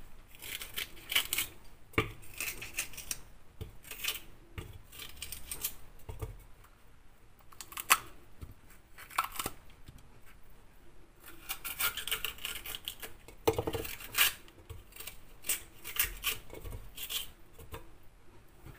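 Crisp crackling and squeaky tearing of a red bell pepper being pulled apart by hand, its seeds and core picked out, in many short irregular bursts.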